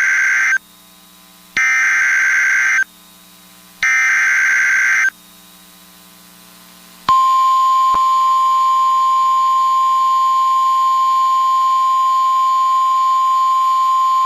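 Emergency Alert System header: the end of one burst of warbling digital data tones, then two more bursts of a little over a second each, about a second apart. About seven seconds in, the steady single-pitch 1050 Hz weather radio alert tone begins and holds, signalling that a warning message is about to be read.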